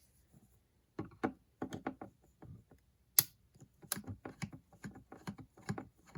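A run of small, irregular clicks and ticks from a Phillips screwdriver working a screw out of the plastic back case of an RC radio transmitter. It starts about a second in, with a sharper click about three seconds in.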